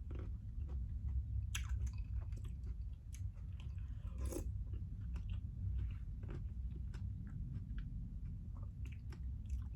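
Close-up chewing of a mouthful of berries chilled with ice, with scattered small crunches.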